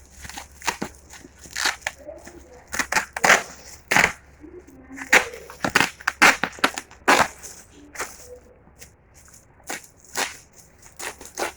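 Packaging being handled and opened by hand: a run of short, sharp, uneven noisy bursts, some louder than others.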